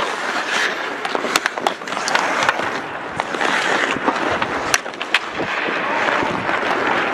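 Hockey skate blades scraping and carving on the ice, with several sharp clacks of sticks and pucks.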